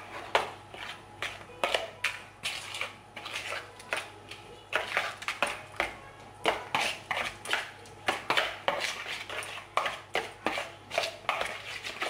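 A metal utensil scraping and clicking against a mixing bowl as diced chicken is stirred through a wet achiote and spice marinade, in quick, uneven strokes.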